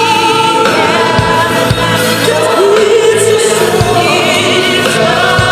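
Gospel choir singing with musical accompaniment, the voices held in long wavering notes, with a few short low thumps.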